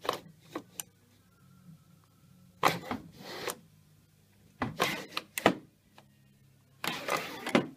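Metal slide carriage being pushed along its linear guide rails toward a limit switch: four short bursts of rattling and clacking, over a faint low hum.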